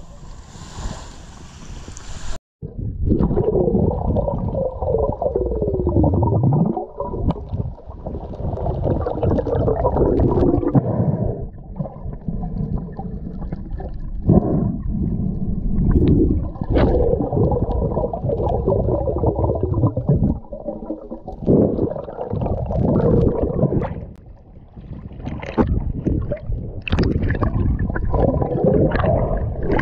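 Muffled water sloshing and gurgling, starting after a short cut in the sound about two seconds in, with a brief lull near the end.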